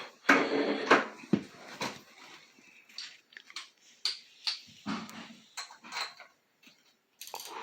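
Metal clinking and knocking of tools and engine parts being handled in a small-engine teardown: a quick clatter in the first two seconds, then scattered single sharp clicks.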